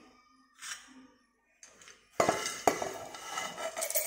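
Roasted peanuts clattering into a stainless steel mixer-grinder jar as they are tipped in from a pan. The rattling starts about two seconds in after a near-quiet start and goes on as a busy run of small clicks and knocks.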